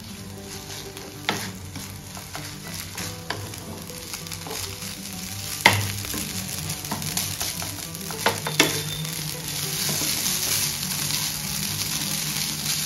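Leftover rice sizzling in a frying pan as it is stirred and turned with a wooden spoon, the spoon knocking sharply against the pan a few times, loudest about halfway through. The sizzle grows louder near the end.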